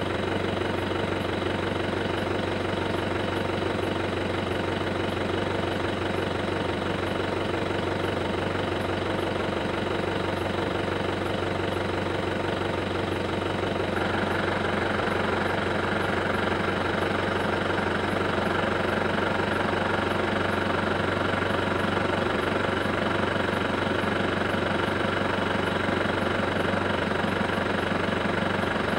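An engine idling steadily with a continuous low hum. About halfway through it grows slightly louder and a steady higher hiss joins it.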